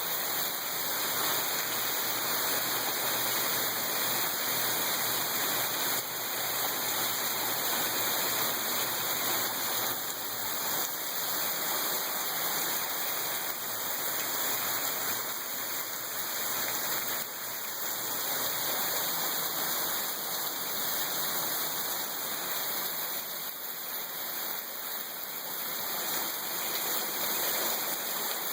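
Heavy rain falling steadily, a dense even hiss of pouring water.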